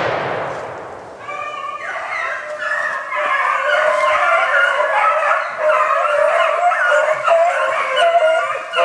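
A pack of rabbit beagles in full cry, many hounds baying and bawling together from about a second in. The echo of a gunshot fades at the start, and another shot goes off right at the end.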